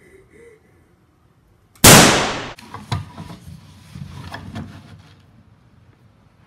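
A single sudden loud bang, a violent hit, about two seconds in, dying away over most of a second, followed by a scatter of smaller knocks and clatters.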